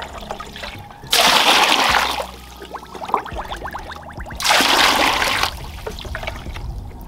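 Water poured from a plastic scoop into a plastic basin of flour, splashing in two pours about three seconds apart, each lasting about a second, as the water is added for the puff-puff dough.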